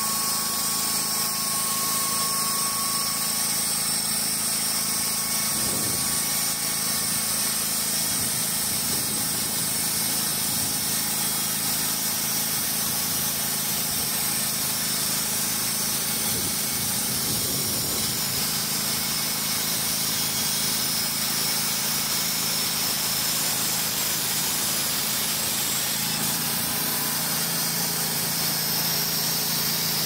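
Wood-Mizer LT35 hydraulic sawmill running steadily under load, its band-saw blade cutting along a squared timber and throwing out sawdust.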